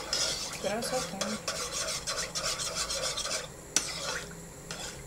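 A spoon stirring sour cream and ketchup in a bowl, scraping round and round against it, with one sharp clink a little under four seconds in.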